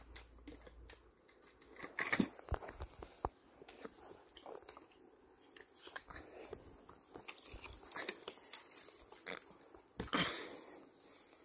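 Scattered clicks, knocks and rustles of an airsoft machine gun being handled on a blanket, louder about two seconds in and again near the end.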